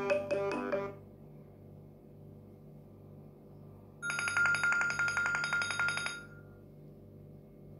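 iPhone SE ringtones: a melodic ringtone ends about a second in. About four seconds in, a rapid electronic trill on one high pitch rings for about two seconds, over a steady low hum.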